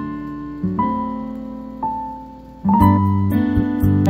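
Background music: a soft piano melody of held notes, joined about two and a half seconds in by a steady beat with drums and bass.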